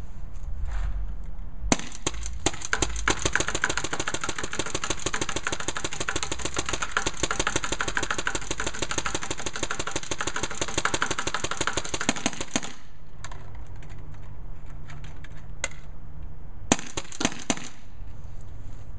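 WGP Outkast autococker paintball marker, converted from pump to mechanical semi-auto, test-fired after its timing was set. It fires a long, rapid, even string of shots for about ten seconds, then a few single shots near the end.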